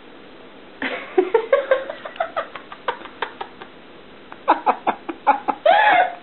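A quick run of short vocal sounds, some rising in pitch, starting about a second in, then louder, longer vocal sounds near the end.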